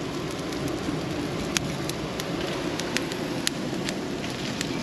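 Small wood campfire crackling, with scattered sharp pops over a steady hiss.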